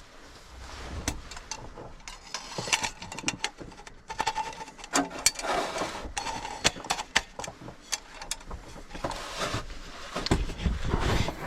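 Handling noises: scattered clicks, light knocks and rustling as small objects are moved and set down, with a low rumble of movement near the end.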